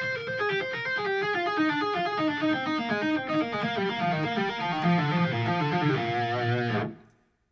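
Fast tapped lead line on an eight-string electric guitar in A-sharp Mixolydian: rapid repeating note patterns stepping downward over a lower rhythm part. It stops abruptly about seven seconds in.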